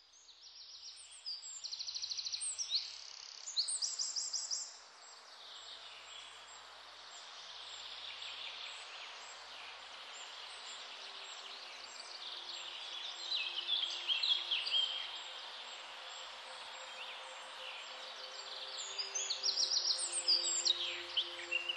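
Several birds singing and chirping over a steady background hiss, fading in at the start, with fast rattling trills in the first few seconds and a busier run of chirps near the end.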